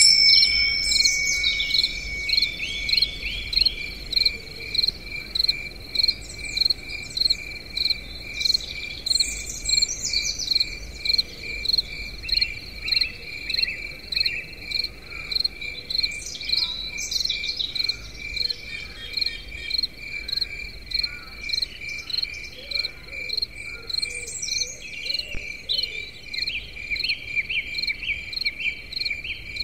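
An insect, cricket-like, chirping in a steady, evenly repeating rhythm, with birds calling now and then over it.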